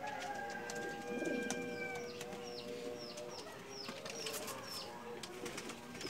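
Domestic pigeons cooing in a loft, with a low coo swelling about a second in, and short high falling chirps repeating throughout.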